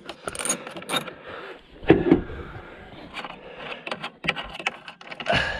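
Ratchet socket wrench working a 10 mm bolt: a scatter of sharp clicks and knocks, the loudest knock about two seconds in.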